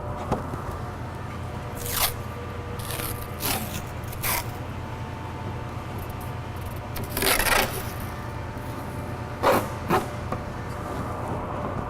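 A series of short scrapes and rustles from hand work on a truck door, the longest about seven seconds in, over a steady low hum.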